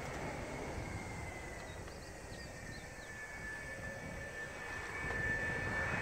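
Twin J79 turbojets of an F-4EJ Kai Phantom II on a high-speed taxi run, heard from a distance: a steady jet rumble with a high whine that slides slightly lower partway through. The sound swells louder near the end.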